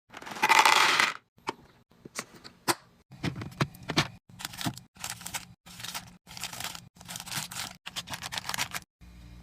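Handling noise of packaging and containers: a loud crinkling rip about a second long, then sharp clicks and a run of short rustling and scraping sounds, about two a second, over a low steady hum.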